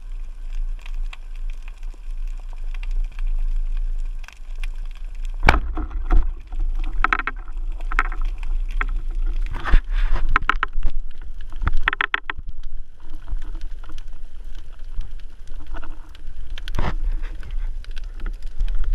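Underwater, a band-powered wooden speargun fires with one sharp snap about five and a half seconds in. Clusters of clicks and knocks follow, over a steady low underwater rumble.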